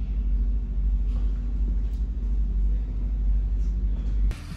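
Low, steady rumble of a car driving, heard from inside the cabin; it cuts off suddenly near the end.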